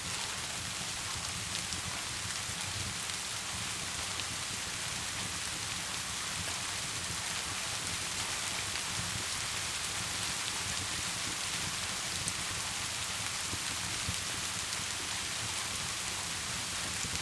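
Steady rain falling as a dense, even hiss, with scattered faint ticks of drops.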